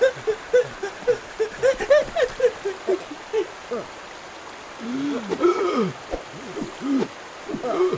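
Cartoon cavemen's wordless gibberish vocalizations: a quick run of short, evenly paced sounds, then a few longer exclamations that rise and fall, over a soft trickle of a stream.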